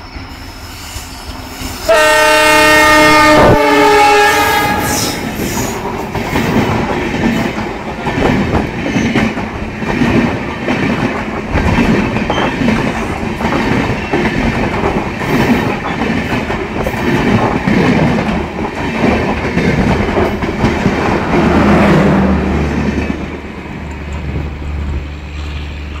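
Passing LHB Shatabdi express train: the locomotive's horn sounds one chord-like blast about two seconds in, lasting about a second and a half, then the locomotive and coaches rush close past with the wheels clattering over the rail joints. The sound fades after about 22 seconds as the train draws away.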